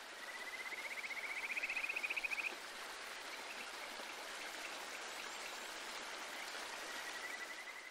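Steady rushing water noise, like a stream or light rain, with a rapid high trill that rises slightly over the first two and a half seconds and returns faintly near the end.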